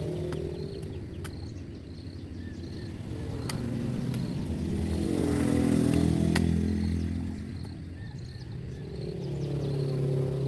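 A motor vehicle engine passing: it grows louder to a peak about six seconds in, then fades, and another swells up near the end. Faint high chirps repeat evenly in the background.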